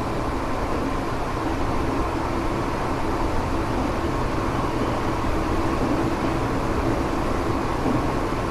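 Running sound of a Tokyo Metro 7000 series armature-chopper train, heard from inside the car as it travels steadily at speed. It is a continuous rolling noise with a faint steady whine in it. This car is known as an odd-noise car for its light 'jet' sound.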